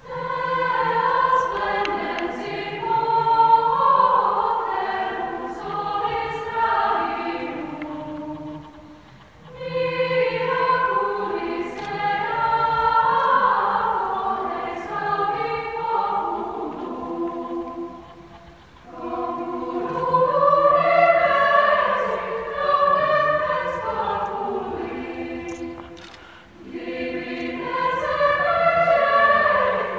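Young choir singing a cappella in several voice parts, in long phrases with short breaks about 9, 18 and 26 seconds in.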